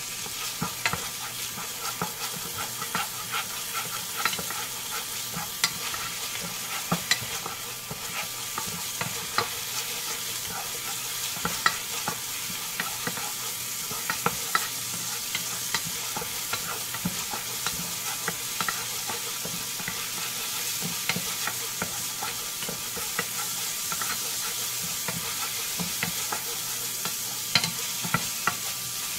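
Minced garlic sizzling steadily in hot oil in a small saucepan. A wooden spatula stirring it gives many short, irregular scrapes and taps against the pan.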